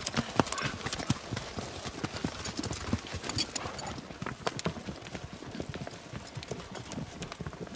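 Hoofbeats of several horses walking on dry dirt and grass, an irregular run of short knocks.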